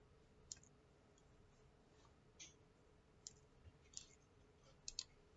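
Faint computer keyboard keystrokes, a few separate clicks spaced unevenly over several seconds, over a faint steady hum.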